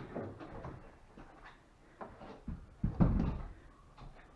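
A wooden strip being handled and fitted against the edge of a wooden boat's deck, giving a few irregular wooden knocks and bumps, the loudest about three seconds in.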